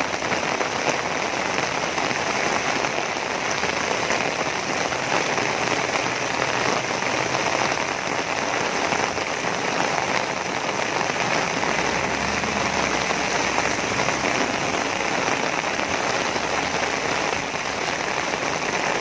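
Heavy rain falling on an umbrella held overhead: a steady, dense hiss of drops that does not let up.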